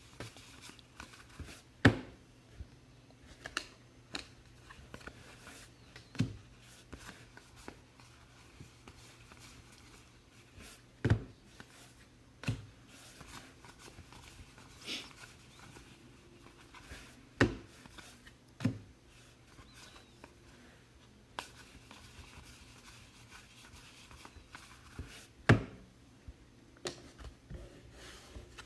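2019 Allen & Ginter trading cards and pack wrappers being handled: soft sliding and rustling, with sharp taps every few seconds as cards are set down or squared. A faint steady low hum lies underneath.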